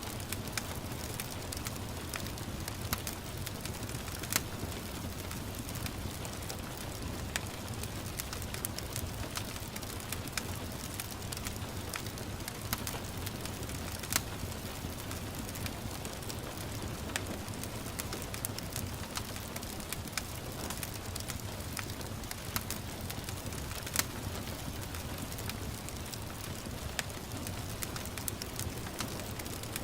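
Wood fire crackling with irregular sharp pops, a few louder than the rest, over a steady hiss of gentle rain.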